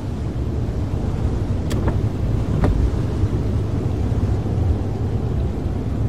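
Car driving at a steady speed: a steady low rumble of engine and road noise, with two short sharp clicks about a second apart near two seconds in.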